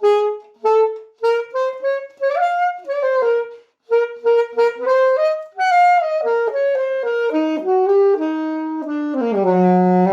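A solo wind instrument plays a melody of short, separated notes, then holds one long low note near the end.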